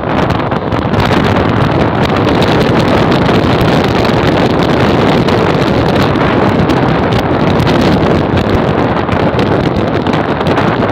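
Steady, loud wind rush on the microphone of a moving motorcycle, with engine and road noise blended underneath.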